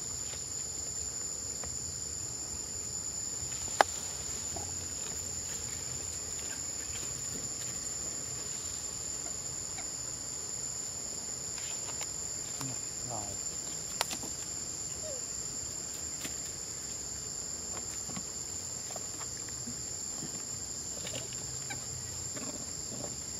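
Steady, high-pitched drone of an insect chorus, with two sharp clicks, one about four seconds in and one near the middle.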